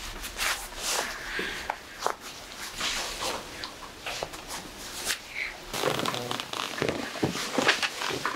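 A woman breathing and sighing, in irregular breathy strokes, with voiced sighs in the last couple of seconds.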